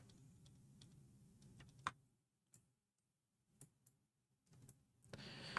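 Near silence broken by a few faint, scattered computer clicks, the clearest about two seconds in, with a faint rush of noise near the end.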